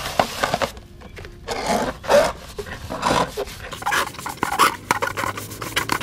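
A sponge scrubbing a wet, soapy bird-cage base: irregular rubbing strokes with a few light knocks.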